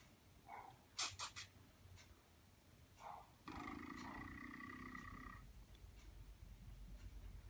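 Bolognese puppy giving a faint, drawn-out low vocal sound that holds steady for about two seconds midway, after a few light clicks about a second in.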